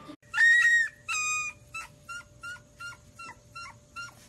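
Husky puppies whimpering: two long, high-pitched whines, then a run of short squeaky whimpers, about two or three a second.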